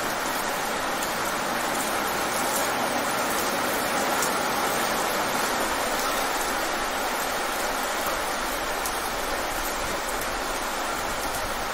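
Heavy rain falling fast on wet pavement: a steady, even hiss of dense drops with a few sharper drop ticks here and there.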